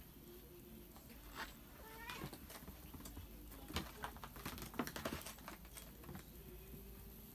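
Kittens playing: one short rising meow about two seconds in, then a run of scratches and taps from claws and paws on the bedsheet and wooden bed edge.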